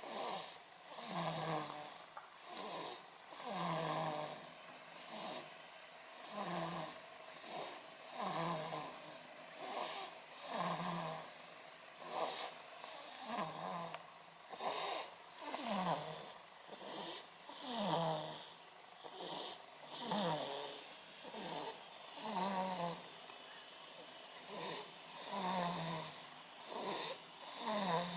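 A baby snoring, one short snore about every second and a half in time with its breathing, many of them sliding down in pitch.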